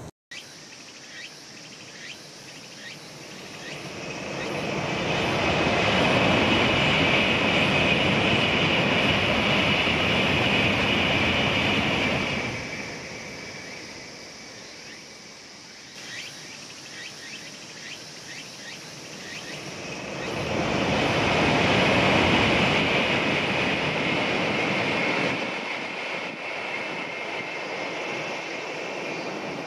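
Two Tokaido Shinkansen high-speed trains rushing past one after the other. The first swells up over about two seconds, runs for about eight seconds and cuts off fairly suddenly; the second, about eight seconds later, is shorter and fades away, each with a steady high hiss over the rush.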